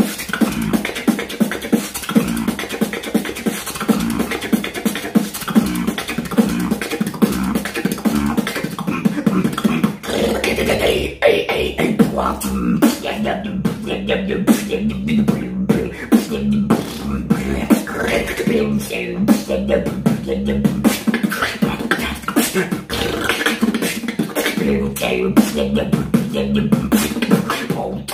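A man beatboxing into a close studio microphone: a fast, unbroken run of mouth-made drum sounds. After a brief dip about ten seconds in, a deep bass tone joins the beat.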